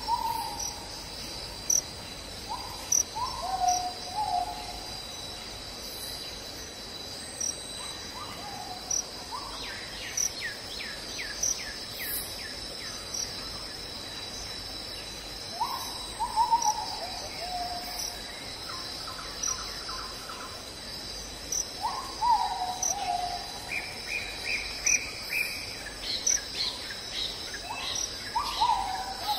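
Forest ambience: a steady high-pitched insect drone with birds calling over it. A low, falling call repeats every few seconds, and quick runs of higher chirping notes come about ten seconds in and again near the end.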